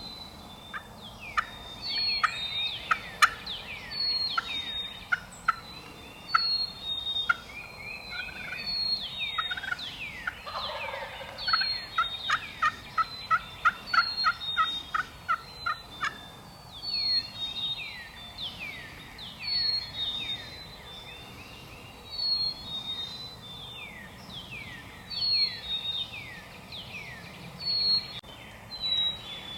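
Wild turkeys calling over and over, many overlapping calls from a flock, with a fast even run of short calls in the middle.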